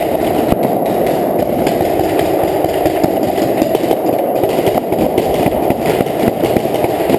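Paintball markers firing in rapid, overlapping shots, which the hall's echo runs together into a dull, continuous din.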